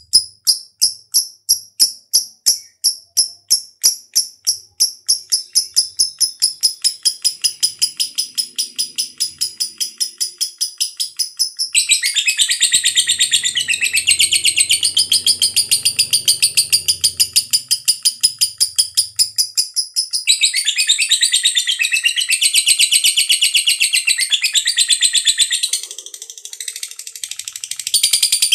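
Lovebird ngekek: a long, fast string of high-pitched chirps at a steady pace, which about twelve seconds in turns into a denser, louder warbling chatter. The chatter breaks off briefly twice, near twenty seconds and shortly before the end.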